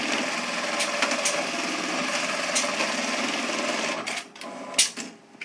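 Juki AMS-221E computer-controlled pattern sewing machine stitching a label at speed, a steady rapid needle rhythm. It stops about four seconds in, followed by a few sharp clicks and knocks.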